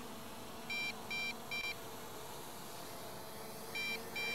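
An electronic beeper sounding short, high beeps in groups of three, about two beeps a second. One group comes about a second in and the next starts near the end, over a faint steady hum.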